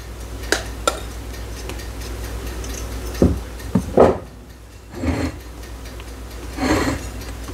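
A spoon clinking and scraping against glass bowls as whipped cream is scooped and dropped onto a trifle, with two sharp clinks in the first second and a few dull knocks a little past halfway. A kitchen timer ticks in the background.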